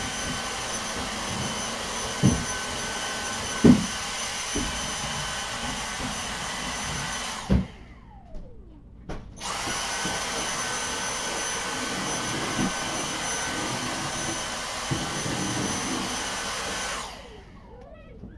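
Vacuum cleaner running with a steady whine, switched off about seven seconds in and winding down, switched back on a second and a half later, then switched off and winding down again near the end. A few knocks sound over it, the loudest about four seconds in.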